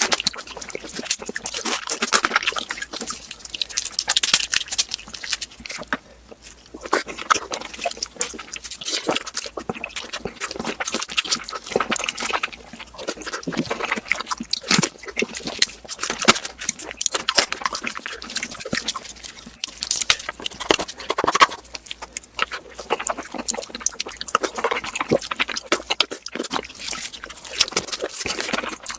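Close-miked eating of Korean marinated raw crab: wet chewing, sucking and slurping with a dense run of crackling clicks and smacks.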